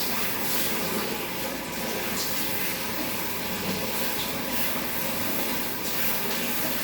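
Shower spray running steadily, rinsing shampoo out of a cat's thick coat.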